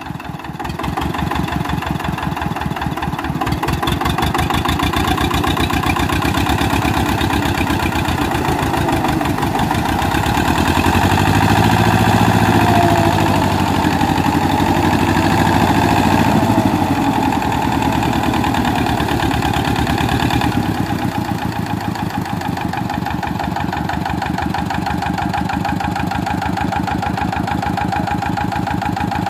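Tractor diesel engines working hard under load: a mud-bound Eicher 364 hauling a loaded trolley, its rear wheel spinning in the mud, while an Escort 435 tows it. The engine note grows louder and deeper about a third of the way in, then eases back about two-thirds through.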